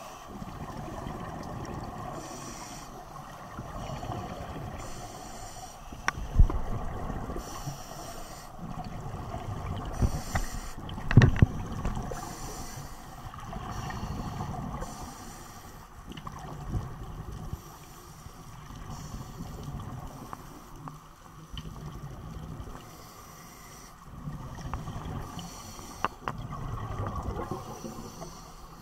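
Scuba breathing underwater through a demand regulator: a hiss every couple of seconds as the diver inhales, and a low bubbling rumble as exhaled air escapes. A few sharp knocks come through, the loudest about 6 and 11 seconds in.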